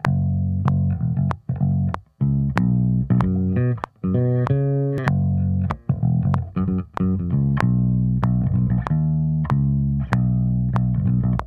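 Electric bass guitar played solo: a slowed-down, syncopated bass line of short low notes with brief breaks between phrases, over a steady click about every 0.6 s.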